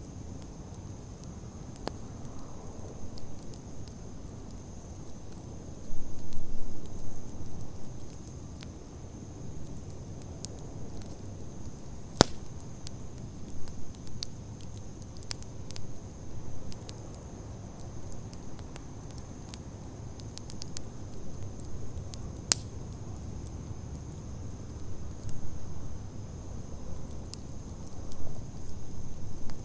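Wood campfire burning: a low steady rumble of flames with scattered crackles and sharp pops, the loudest pops about twelve and twenty-two seconds in.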